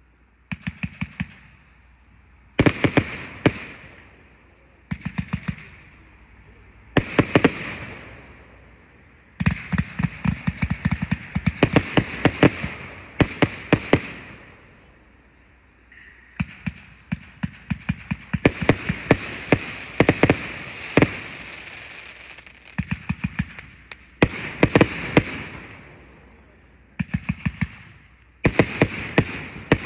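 Consumer fireworks cake (multi-shot battery) firing in volleys: quick runs of sharp shots with a hiss running under them, broken by short pauses, with one long run of shots through the middle.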